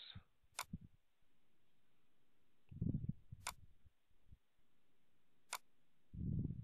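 Three sharp computer mouse clicks, a couple of seconds apart, with two short, low, muffled bumps between them.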